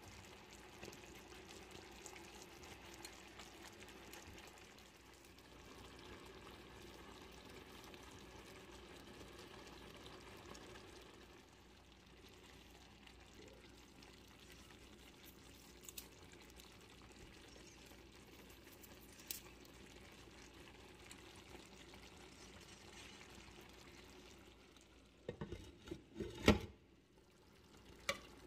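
Fried milkfish steaks simmering faintly in soy-sauce liquid in a frying pan, with a couple of light clicks. Near the end a metal spoon knocks and scrapes against the pan several times, louder than the simmer.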